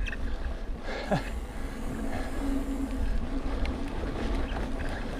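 Ibis Mojo HDR650 mountain bike rolling fast down a dirt forest trail: steady tyre rumble and wind buffeting on the chest-mounted camera, with occasional light knocks from the bike.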